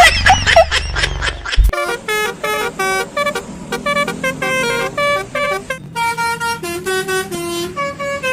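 Telolet-style multi-tone bus air horn playing a quick tune of short pitched toots. It comes after about a second and a half of warbling, swooping tones over a low rumble.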